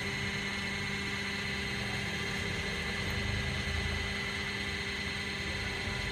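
Ribbon blender running empty, its electric motor and reduction gearbox giving a steady hum with a higher whine as the ribbon agitator turns in the bare stainless-steel trough.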